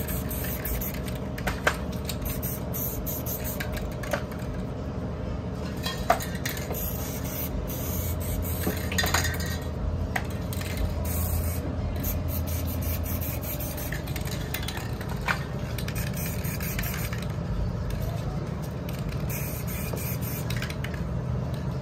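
Aerosol spray-paint cans hissing in repeated short bursts, with sharp metal clinks now and then as cans are picked up and set back in the racks.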